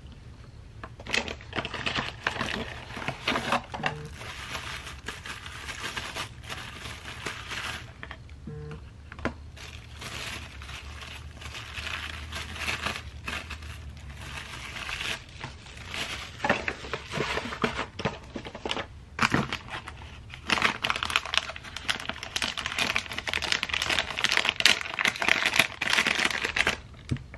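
Packaging crinkling and rustling as small headphone accessories are unwrapped by hand, in irregular bursts that grow busier and louder in the last several seconds.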